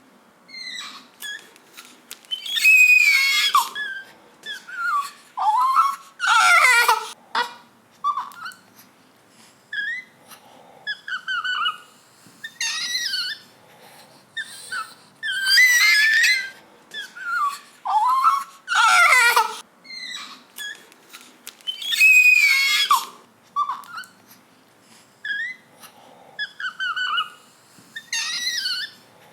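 Newborn baby crying: loud, high-pitched wails every few seconds, with short squeaks and whimpers in between.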